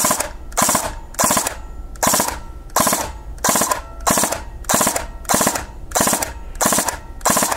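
Airsoft electric gun (AEG) gearbox with its stock motor, switched by a Perun AB++ MOSFET, dry-firing short three-round bursts over and over, about one burst every two-thirds of a second. Each burst cuts off sharply, with the MOSFET's active braking set to full and stopping the motor at once.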